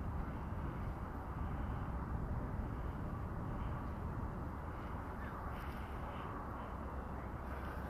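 Steady low rumble of a far-off long train hauled by Union Pacific steam locomotive No. 3985.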